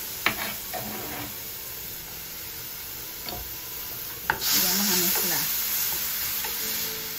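Diced onion and peppers sizzling in oil in a nonstick frying pan, stirred with a wooden spoon, with two sharp knocks of the spoon or ingredients against the pan. About four seconds in, the sizzle swells as diced green pepper goes into the hot oil, then slowly eases.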